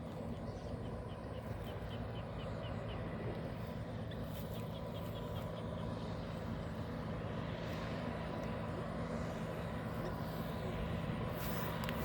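Engine of a Kubota farm machine running steadily, with two short runs of faint high chirps in the first half.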